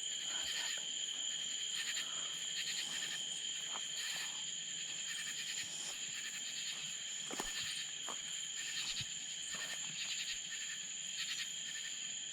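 Night chorus of insects: a steady high-pitched drone on two pitches, with rhythmic chirps repeating roughly once a second.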